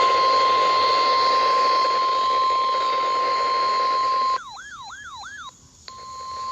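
NOAA Weather Radio warning alarm tone: one steady, loud, high-pitched tone, the signal that a new warning is about to be read. About four seconds in it drops out for about a second and a half. In its place is a quieter warbling sound that rises sharply and falls back about three times, then the steady tone returns.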